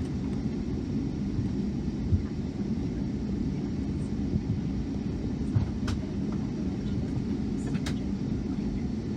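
Steady low rumble of engines and airframe inside the cabin of a Boeing 757-200 on the ground before takeoff, with a few light knocks and clicks from the cabin.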